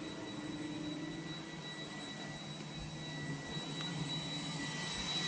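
iRobot Roomba 980 robot vacuum running, a steady hum of its vacuum fan and brushes with a thin high whine, growing a little louder in the second half.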